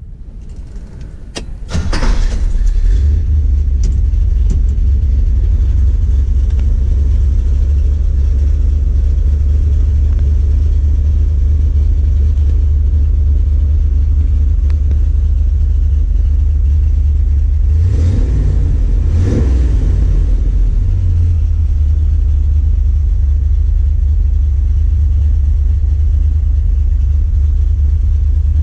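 1967 Corvette's L79 327 small-block V8 catching about two seconds in after the starter, then idling steadily, heard from inside the cabin. It is revved twice, briefly, about two-thirds of the way through.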